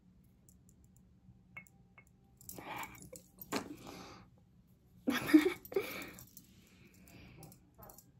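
Glass perfume bottles being handled and set against each other on a surface: three bursts of knocks and scrapes, the loudest about five seconds in.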